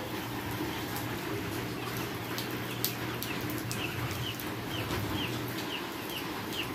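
A bird chirping: short, falling chirps at about two a second, starting about halfway through, over a steady hiss of rain with a few scattered drips.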